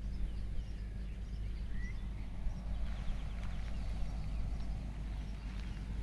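Wind buffeting the phone's microphone, a steady low rumble, with faint bird chirps and calls above it, including a short rising call about two seconds in and a quick run of chirps about three seconds in.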